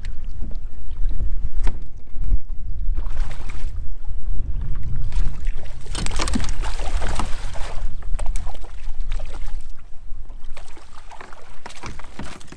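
Wind buffeting the microphone, with water splashing as a hooked brook trout thrashes and is scooped into a landing net beside the kayak; the splashing is loudest about six seconds in.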